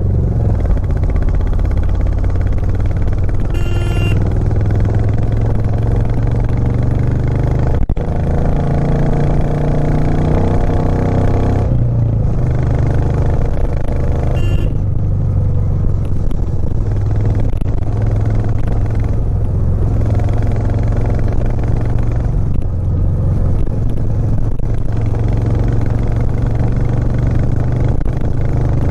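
Royal Enfield Classic 350's single-cylinder engine running steadily under load as the motorcycle climbs, its note shifting slightly now and then. A short sharp knock about eight seconds in, and two brief high tones, about four seconds in and again near the middle.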